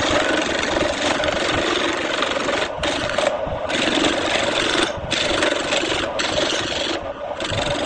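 Turning tool cutting a spinning wooden disc on a wood lathe: a loud, rough scraping noise over the steady hum of the lathe, breaking off briefly several times as the cut pauses.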